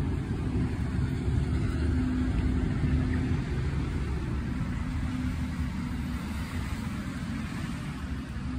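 Steady low rumble of city road traffic, with an engine hum that comes and goes.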